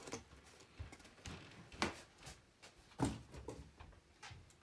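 Handling noise from a sheet of corrugated cardboard and a pair of scissors on a wooden work surface: faint scraping with a few light knocks, the loudest about two and three seconds in.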